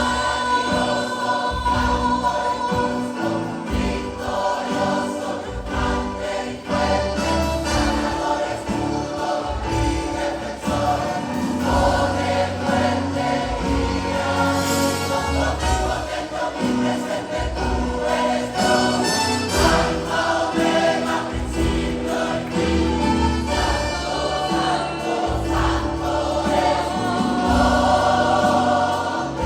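A choir singing a Christian worship song with instrumental accompaniment, sustained chords and a bass line underneath.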